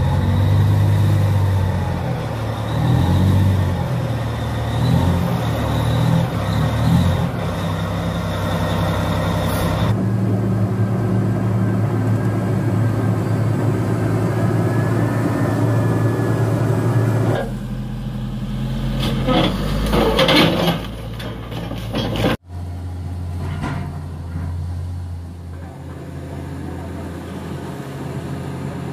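Large diesel engines of heavy mining machines running steadily in a series of cuts: an off-highway haul truck close by, then a motor grader, then a Cat 345GC excavator. Knocks and clatter sound for a few seconds past the middle.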